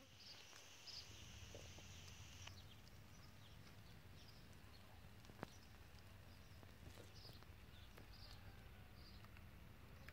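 Near silence: faint outdoor garden ambience with a low steady rumble and scattered faint high chirps of distant birds. A thin high steady sound stops about two and a half seconds in, and a single sharp click comes about halfway through.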